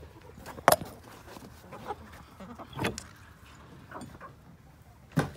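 Wooden barn door being handled: a few sharp knocks and bangs, the loudest about two-thirds of a second in, another near three seconds and one just before the end.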